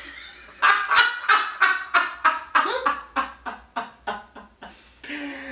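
Hearty laughter: a quick run of loud ha-ha bursts, about three to four a second, that slows and fades out after about four seconds.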